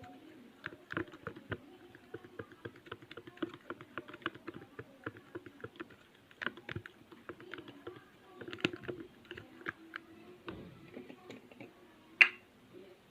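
Glue-based slime being stirred in a container with a stirrer: a dense run of irregular sticky clicks and small squelches as the mixture begins to thicken, with one sharper click about 12 seconds in.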